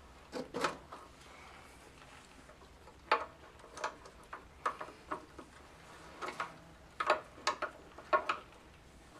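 About a dozen sharp metal clicks and clinks at irregular intervals as a spanner wrench with a bar through it is fitted and turned on the threaded gland of a hydraulic bucket tilt cylinder, unscrewing the gland after it has been cracked loose.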